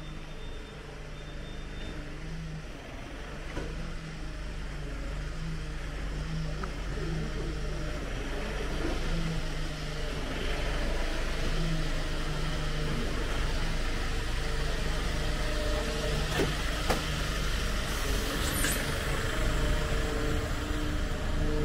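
Road traffic: vehicle engine and tyre noise that grows steadily louder over the first half and then stays up, with a few sharp clicks near the end.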